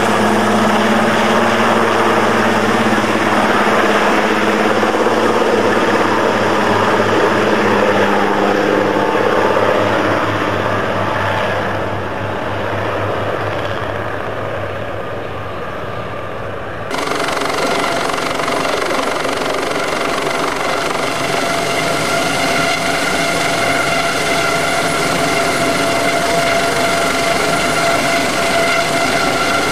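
An Aérospatiale AS332L Super Puma twin-turbine helicopter close by, its rotor beating steadily over the turbine noise, growing fainter as it climbs away. About 17 seconds in, the sound cuts abruptly to a second helicopter overhead with a steady turbine whine of several high tones.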